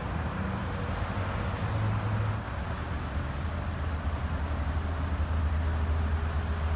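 A motor engine running with a steady low drone that shifts slightly lower in pitch about two seconds in, over general outdoor noise.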